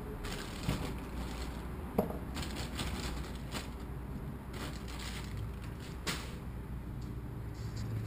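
Plastic zip-top bags crinkling and rustling as vegetables are handled, with three light knocks, the sharpest about two seconds in.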